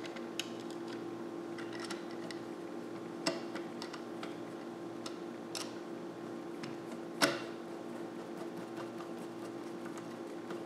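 Scattered light clicks and taps of a screwdriver and small metal parts on the chute cover of a Turin DF83 espresso grinder, one sharper click about seven seconds in, over a steady hum.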